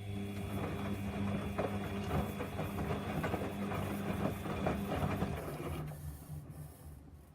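Samsung front-loading washing machine turning its drum: a steady motor hum with a busy clatter and swish of the wet towels tumbling. It starts abruptly and winds down and stops about six seconds in.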